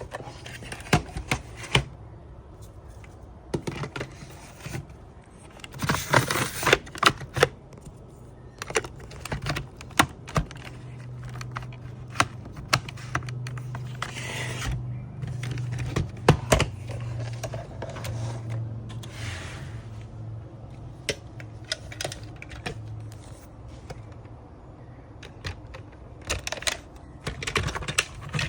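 Plastic parts of a Dyson stick vacuum being handled and snapped back together during reassembly: irregular clicks and knocks with a few short scrapes, over a low steady hum.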